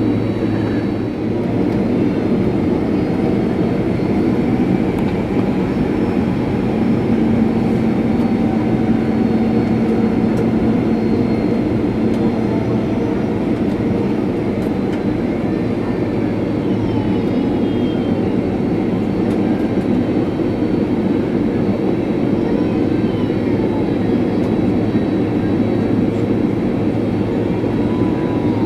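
Cabin noise of a Boeing 767-300 taxiing after landing: a steady, loud rumble from the engines at taxi power, with a steady low hum under it.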